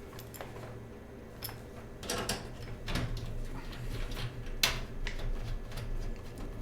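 Scattered clicks and knocks of computer hardware being handled, over a low steady hum.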